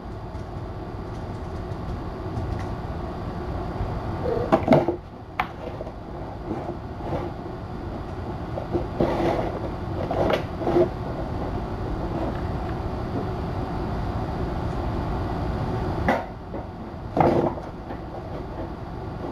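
Cats romping and pouncing: scattered soft thumps and scuffles over a steady low rumble of room noise, the clearest bumps about five seconds in, around ten seconds and near sixteen to seventeen seconds.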